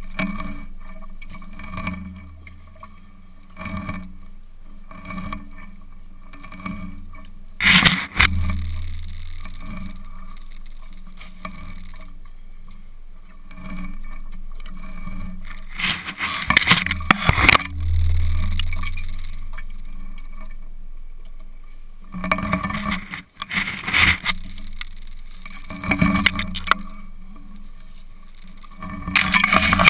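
An elephant browsing: its trunk tears at honey locust branches and grass, giving spells of loud rustling, scraping and snapping over a steady low hum.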